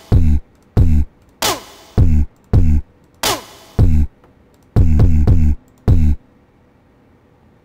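Beatbox-kit drum samples from DUBturbo's drum machine sounding one at a time as notes are drawn into the grid. It is a string of short, deep kick hits with two sharper snare hits among them, the last few kicks in quick succession. The hits stop about six seconds in.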